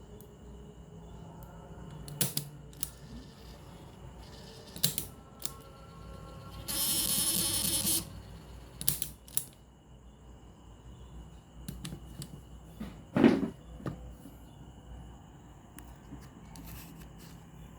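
Handling noises from repair work on a radio cassette player: scattered small clicks and knocks of tools and parts, a hiss lasting about a second near the middle, and one louder knock about two-thirds of the way through.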